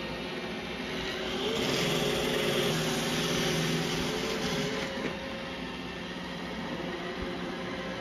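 iRobot Roomba i7+ robot vacuum running, a steady motor hum with a wavering whine. It grows louder for a few seconds in the middle as the robot drives off the rug onto the tatami and back.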